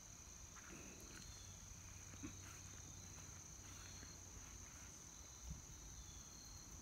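Near silence with a steady high-pitched drone of crickets, broken by a few faint soft ticks and rustles.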